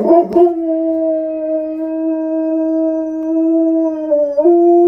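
Czechoslovakian Wolfdog howling: one long, steady note held for about four seconds, which steps up in pitch near the end.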